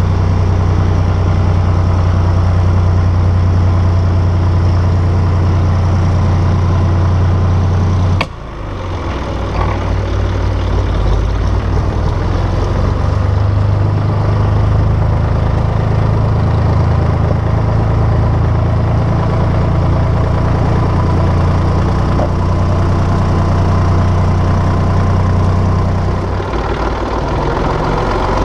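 1967 IHC 423 tractor's diesel engine running steadily while the tractor drives. About eight seconds in, a sharp click and a brief dip in level, after which the engine carries on.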